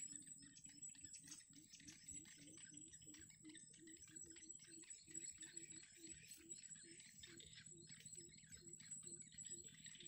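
Faint outdoor ambience: a low note repeating about three times a second, stopping shortly before the end, over a steady high whine and soft crackling.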